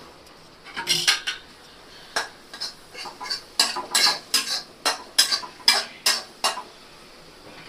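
Flat metal spatula scraping and clanking against a metal kadai while stirring chopped onions, a quick run of sharp strokes that starts about a second in and stops about a second before the end.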